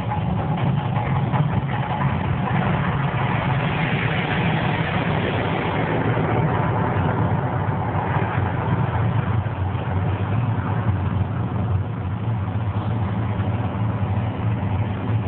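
Steady deep rumble with a rushing noise over it from the Las Vegas volcano attraction's show, loud and even throughout.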